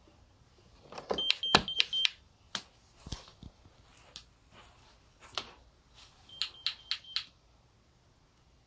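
GE Simon XT alarm panel beeping: four short high beeps about a second in and another four near the end. Scattered knocks and thumps fall between the two sets.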